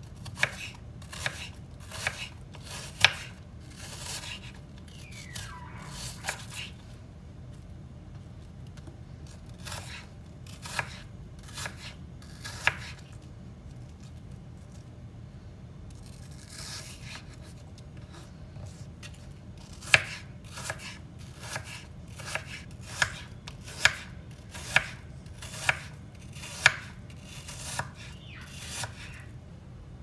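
A kitchen knife slicing peeled apple on a bamboo cutting board: sharp knocks as the blade hits the board. They come scattered at first, then in a steady run of about one a second near the end, with a couple of softer scrapes in between.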